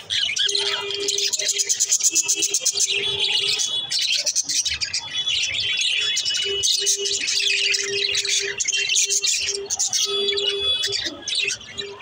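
A flock of budgerigars chattering, a dense, continuous stream of rapid high chirps and warbles.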